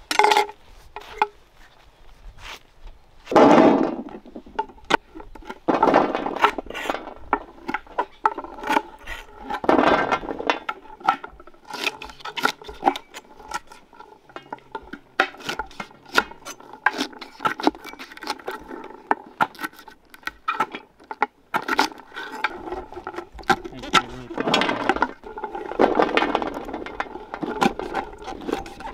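Kitchen knife chopping moringa (drumstick) pods on a wooden cutting board: a run of sharp, irregular knocks of the blade through the pods onto the wood. A few longer, louder scraping bursts come in between.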